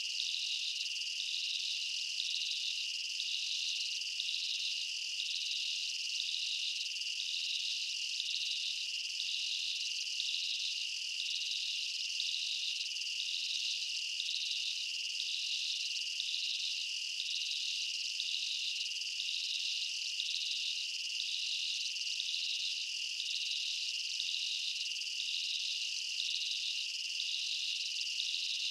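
Insects trilling steadily, a high shrill chorus with a regular pulsing beat over a continuous tone.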